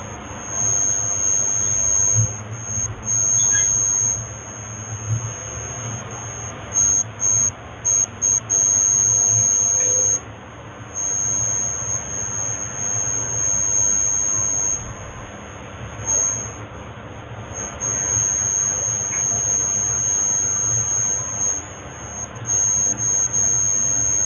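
A high-pitched steady whine, a single pure tone that keeps cutting in and out at irregular intervals, over faint background hiss.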